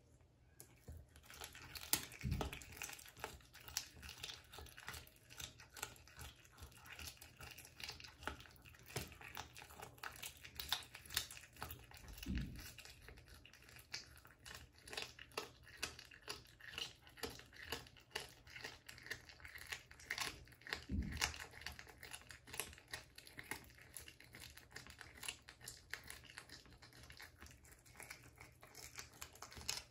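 A cat chewing a raw duck foot: a steady run of small crunches and clicks as it gnaws at the foot, with three dull thumps spread through.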